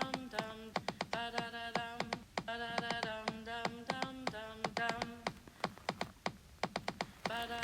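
Electronic music track: a buzzy synth note repeated at nearly one pitch in short held notes, over fast clicky percussion.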